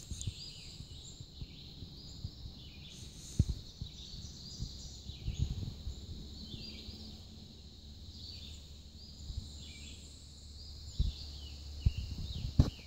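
Small birds chirping over and over, short rising chirps, over a low rumble, with a few sharp knocks, the loudest about three seconds in and near the end.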